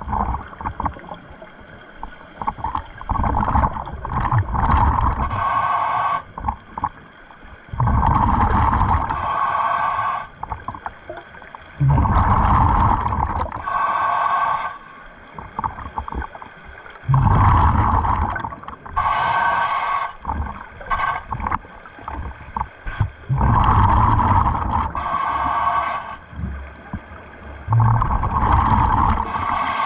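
A scuba diver breathing through a regulator underwater: a short hissing inhale alternates with a longer bubbling exhale, about seven breaths, one every four seconds or so.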